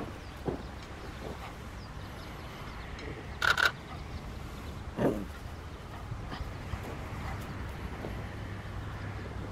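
Two short animal calls over a steady low outdoor rumble: a sharp double call about three and a half seconds in, the loudest sound, and a shorter, lower call about a second and a half later, with a few faint ticks in between.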